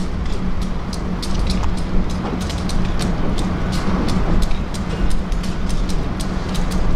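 Diesel locomotive moving slowly toward the listener, its engine giving a steady low rumble and hum, with many quick sharp clicks coming irregularly over it.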